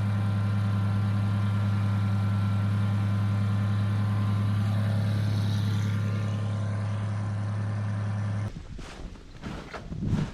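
Steady drone of a vehicle engine at an even speed, cutting off suddenly about eight and a half seconds in. Quieter rustling and a few short knocks follow.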